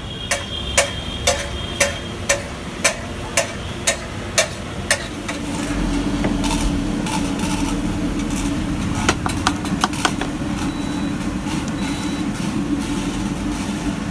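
Sharp metallic knocks about twice a second for the first five seconds. Then a steady hum from an induction cooktop running at high power, with a few clicks and two short high beeps.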